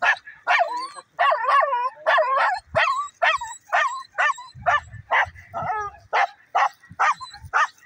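Dogs barking over and over, short high yipping barks coming about two to three a second, some with a whining rise and fall in pitch.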